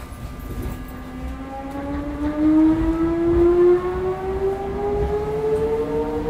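Odakyu 1000 series electric train pulling away, its VVVF inverter traction motors giving a whine of several tones that climb steadily in pitch as it accelerates, over a low running rumble.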